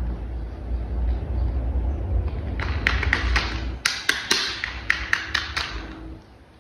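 A quick run of sharp clicks and taps, like plastic toy parts being handled and snapped together, over a low rumble that stops about four seconds in.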